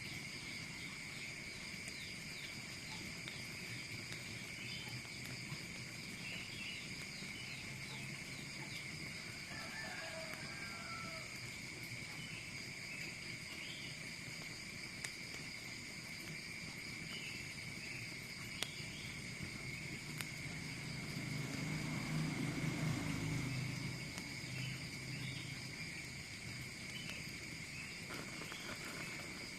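Insects chirring steadily at several high pitches, with scattered short bird chirps over them. A low rumble swells for a few seconds about two-thirds of the way through.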